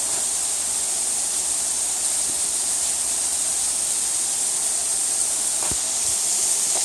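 Waterfall rushing: a steady, even hiss of falling water that holds without change.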